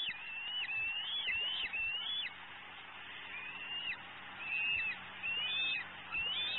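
Juvenile bald eagle calling: a run of high, thin, whistled notes, each rising and then dropping sharply, repeated several times with a pause around the middle.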